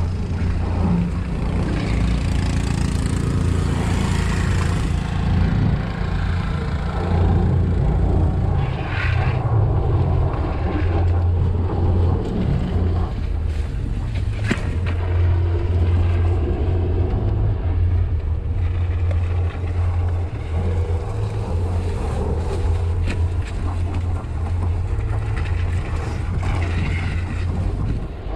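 Steady low drone of a moving vehicle mixed with rushing wind on the microphone, as from a Jeep Grand Cherokee towing a skier through snow.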